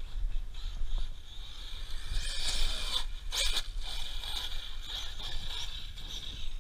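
ARRMA Siren 6S BLX RC truck's brushless motor whining at speed, with gravel scraping under its tyres. The sound swells about two seconds in and holds two sharp knocks near the middle. A low wind rumble on the microphone sits underneath.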